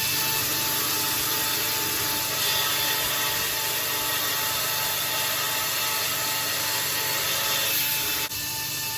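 Power tool working a steel knife blank, running steadily: a constant motor whine over a rasping hiss. It breaks off sharply near the end and carries on a little quieter.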